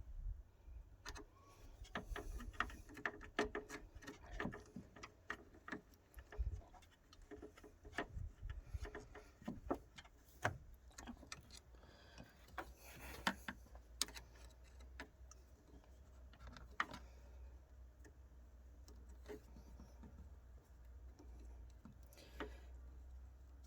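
A flathead screwdriver clicking and scraping against a radiator hose clamp as the clamp is pried loose: irregular small metallic taps and ticks, thinning out over the last third.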